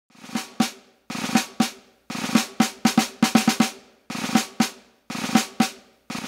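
Drum music: short snare-drum rolls and hits in phrases about a second long, with brief pauses between them.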